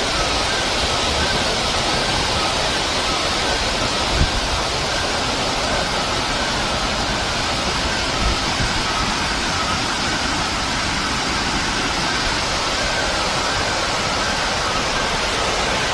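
Floodwater rushing down a street in a steady torrent, with torrential rain, a continuous even rushing noise. A faint wavering high tone runs through it.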